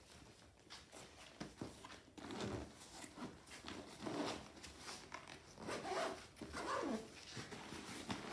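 Zipper on a Coleman soft-sided cooler bag being pulled closed around the lid in a series of short, uneven pulls, with the bag's fabric rustling.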